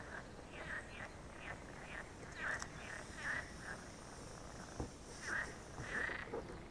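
Air leaking out through a failing patch on an inflatable boat's tube, coming out in a run of short squeaky spurts with a steady hiss from about two and a half to six seconds in, as a hand presses on the patch. The patch has started to leak and the boat is losing air.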